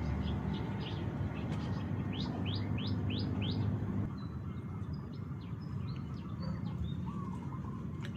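Birds chirping, with a quick run of four sharp calls about two to four seconds in and scattered chirps after, over a steady low rumble that drops off about four seconds in.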